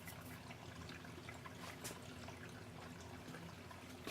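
Steady low hum and hiss of room background, with a few faint clicks of small parts and wires being handled.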